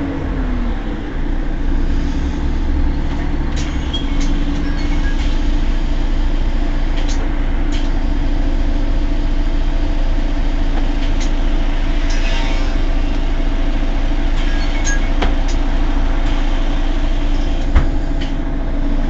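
Mercedes-Benz Citaro G C2 articulated bus engine running steadily at idle. A few sharp clicks sound over it, the loudest near the end.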